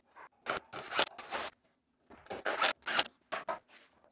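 Irregular series of short scraping and rubbing strokes as wooden shelf-frame parts are handled and shifted on a workbench.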